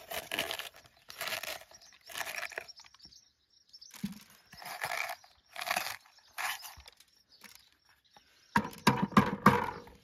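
Stainless steel corer twisting into crisp green peppers, the flesh crunching and squeaking as it is cut, in short strokes about once a second. A louder, denser run of crunches and knocks comes near the end.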